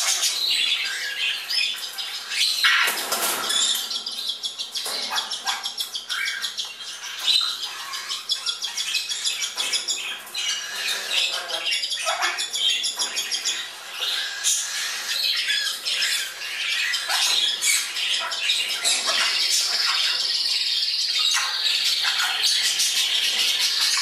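Young African grey parrots, Congo and Timneh, squawking and calling over one another in a stream of short, repeated squawks and clicks. A long, high, steady note runs through the last few seconds.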